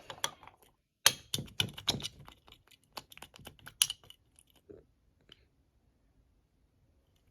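Small hard objects being handled on a tabletop: a quick run of light clicks and taps for about three seconds, thinning out, then near silence.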